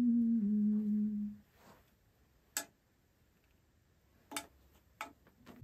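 A woman humming a steady held note for about a second and a half, stepping slightly down in pitch, as she checks her starting note before a vocal take. Then three sharp clicks, spread over the next few seconds.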